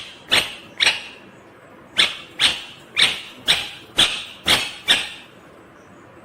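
Indian ringneck parakeet giving loud, short, shrill calls at about two a second: two calls, a pause of about a second, then a run of seven.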